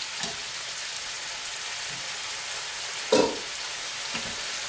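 Ribeye steak sizzling steadily in a frying pan, with one sharp loud clink about three seconds in.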